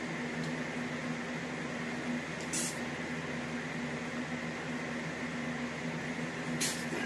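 Steady electrical hum of a small room with a low drone. Twice, about two and a half seconds in and near the end, a short, sharp hissing swish comes from a man throwing side kicks.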